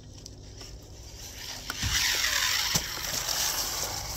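A 1/16-scale RC truck's electric motor whining as the truck runs over dry leaves and grass, loudening about two seconds in and falling in pitch as it passes close by. Two sharp knocks come from the truck hitting the ground, about two and three seconds in.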